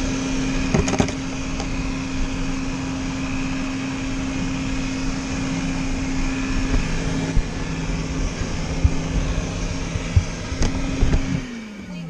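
WYZE robot vacuum running, heard from a camera mounted on its body: a steady motor hum with brush and wheel noise and a few light knocks. A second, lower hum joins about halfway through, and near the end the hum drops in pitch and fades as the motor slows.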